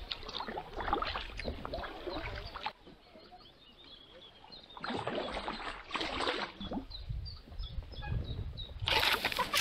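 A kayak working its way through an overgrown channel: paddle splashes, and leaves and branches rustling and scraping against the boat and paddlers in bursts. The rustling comes loudest just before the end, and there is a quieter spell a few seconds in.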